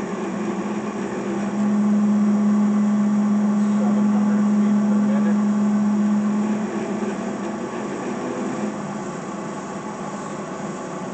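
Victor DCM-4 vertical band saw running in its high speed range without cutting: a steady machine hum that grows louder and stronger from about a second and a half in, holds for about five seconds, then eases back.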